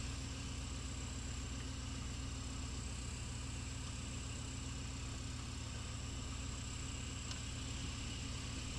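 1983 Pontiac Trans Am's 305 small-block V8 idling steadily, heard from inside the cabin.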